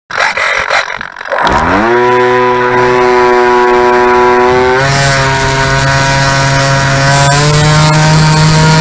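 Brushless electric motor and propeller of a Bixler 2 RC glider, heard close up from the plane's onboard camera. After about a second and a half of irregular rustling and knocks, the motor spins up in a quick rising whine and then runs steadily, its pitch shifting slightly with throttle about five seconds in and again near the end.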